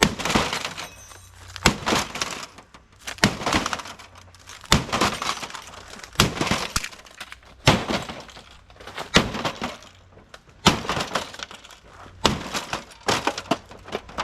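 Repeated blows smashing an LG TV, about one every second and a half, each with glass breaking and crackling.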